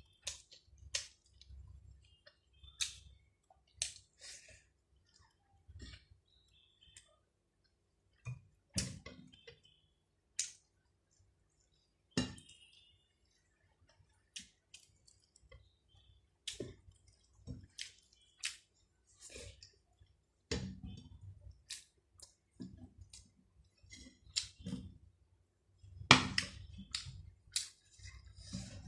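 A person eating rice and chicken with a close microphone: irregular chewing, wet mouth clicks and smacks, and now and then a light tap on the plate, with short quiet gaps between. The sounds are busiest and loudest about 26 seconds in.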